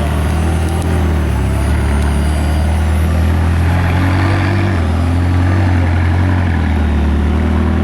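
McLaren 600LT's twin-turbo V8 idling steadily.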